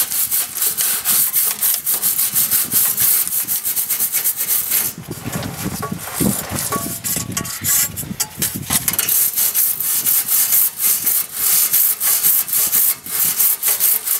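Hand wire brush scrubbing the rusty underside of a pickup truck's steel gas tank in rapid back-and-forth strokes, with a short lull about five seconds in. The rust is being cleaned off to expose a leaking rust hole before it is patched with epoxy.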